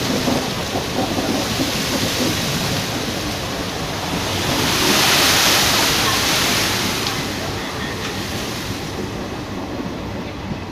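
Steady rushing noise of a moving train heard at an open window, with wind, swelling louder for a couple of seconds around the middle.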